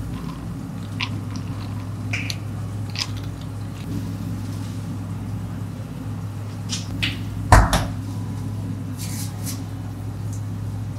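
Barista's work noises at a café counter: scattered light clicks and knocks of cups and utensils over a steady low hum, with one heavier clunk about seven and a half seconds in.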